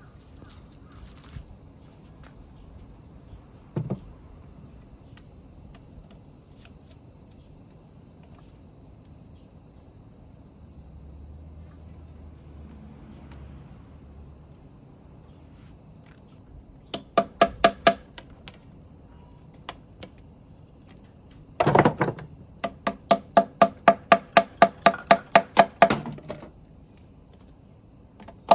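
Rapid runs of hollow wooden knocks, about five a second: a short run of about seven a little past the middle, then a longer run of about twenty near the end. A steady high insect buzz runs underneath.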